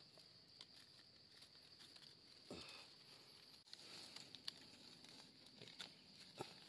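Faint scraping and small ticks as a knife blade scrapes soil off a freshly picked mushroom's stem, over a steady faint high hum; quiet overall.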